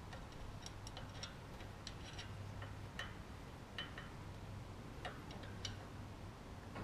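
Scattered light metallic clicks and ticks of a screwdriver and wrench on a rocker-arm adjusting screw and locknut as the valve lash is set on a Franklin 165 hp aircraft engine. A faint low hum comes and goes underneath.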